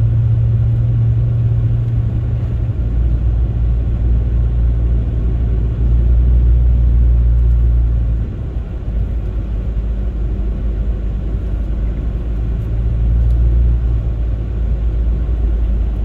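Steady low drone of a Chrysler 300C's Hemi V8 and its tyres on a snow-covered road, heard inside the cabin while driving. The low hum shifts in pitch about three seconds in and again about halfway.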